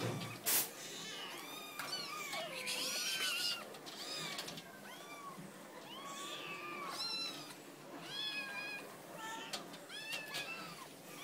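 Many kittens meowing over one another, with short high mews that rise and fall and overlap constantly. A sharp click comes about half a second in.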